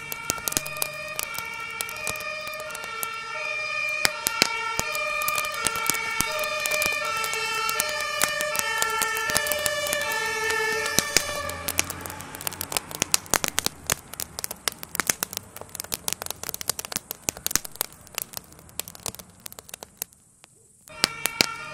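A two-tone emergency siren alternating between a high and a low note, which stops about halfway through. Dense sharp crackles and pops from the burning garden shed run throughout. Near the end the sound drops out for about a second, and then the siren comes back.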